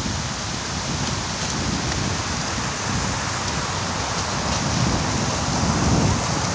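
Fountain jets splashing into a pool, a steady rain-like hiss of falling water, with wind buffeting the microphone as a low rumble that grows louder near the end.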